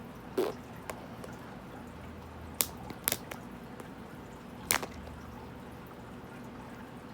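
A plastic surprise egg being pried and worked at to get it open, giving about six sharp clicks and taps spread over a few seconds, the loudest two near the middle.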